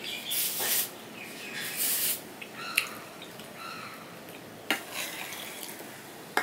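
Spoonful of milk-soaked bakorkhani slurped and eaten twice in the first two seconds. Then a metal spoon clinks sharply against a steel bowl three times while scooping up more of the soggy bread.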